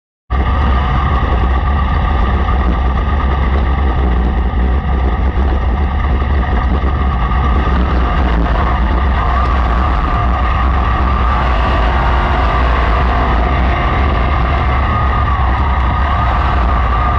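Racesaver sprint car's 305 cubic-inch V8 running steadily while being warmed up; the sound cuts in suddenly just after the start.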